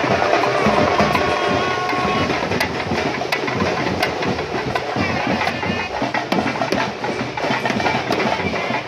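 A street procession band playing: drums beat a dense, steady rhythm while clarinets play held notes over them, most clearly about a second in and again around halfway through.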